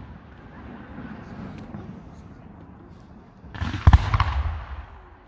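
Aerial firework shells: the rumble of a burst dies away, then about three and a half seconds in another shell goes off with a rising rush, a sharp bang and a few smaller cracks, rumbling out over about a second.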